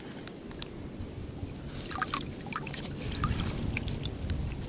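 Water trickling and dripping with small splashes, which grow busier about two seconds in.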